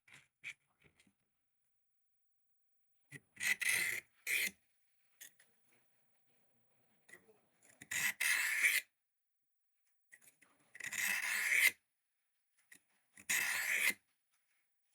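Civivi Vision FG blade drawn across a cheap handheld Work Sharp-style sharpener: five rasping strokes of steel on abrasive, two close together near the start, then three longer ones a couple of seconds apart.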